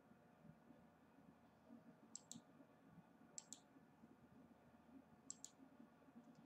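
Faint clicking: three quick double clicks, a few seconds apart, over a quiet room's low hum.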